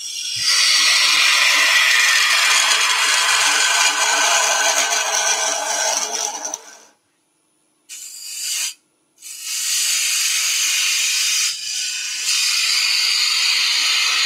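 Gouge cutting into end grain on a spinning wood lathe, hollowing out a small recess: a loud, steady rushing scrape of the tool peeling shavings. The cut breaks off about seven seconds in, a short cut follows a second later, and steady cutting resumes about nine seconds in.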